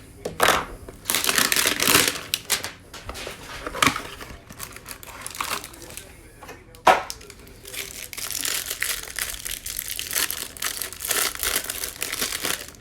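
Trading card hanger box packaging being torn open and crinkled by hand, in irregular rustling bursts, with one sharp snap about seven seconds in.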